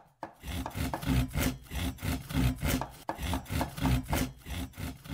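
A hand tool scraping back and forth through wood in steady strokes, about two a second, as in sawing or rasping timber: a carpentry sound effect standing for shipwrights at work.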